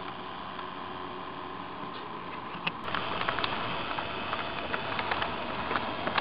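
HO scale model train rolling, with a steady hum. About three seconds in it becomes louder and closer, with rapid irregular clicking from the model hopper cars' wheels running over the track.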